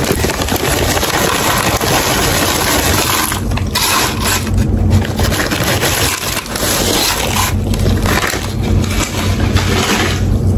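Lay's potato chips pouring out of an upturned foil chip bag onto a pile of chips on a wooden tray, with the bag crinkling as it is shaken. It is a loud, dense rustling and clattering with a few short breaks.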